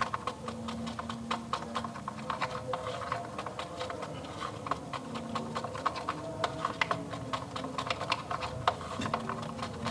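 A stirrer clicking and scraping rapidly against the sides of a container while stirring a soapy water-and-glue slime mixture to foam it up.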